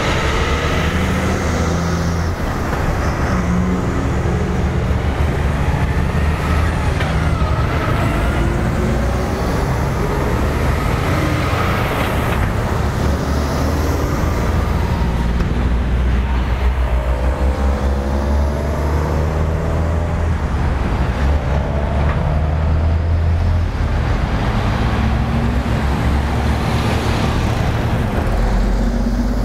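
A convoy of heavy diesel trucks, among them Kenworths and unladen tractor units, driving past one after another. The engines run loud and steady, with revs rising and falling as each truck goes by.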